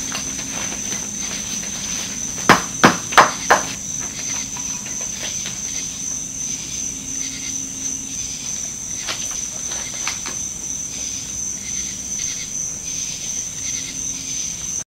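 Plaster investment mold being broken away by hand from an aluminum mushroom casting: four sharp cracks in quick succession a few seconds in, then a couple of lighter knocks as chunks come off. A steady high-pitched whine runs underneath.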